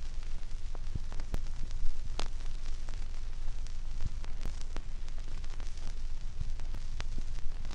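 Surface noise of a Seeburg 9-inch, 16⅔ rpm background-music vinyl record in the blank groove between songs: a steady hiss and low rumble with scattered clicks and pops.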